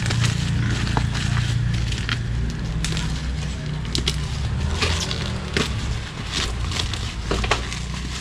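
Bubble wrap and plastic packing tape crinkling and crackling as a taped parcel is cut with scissors and picked open by hand, in scattered short crackles and clicks. A steady low rumble runs underneath.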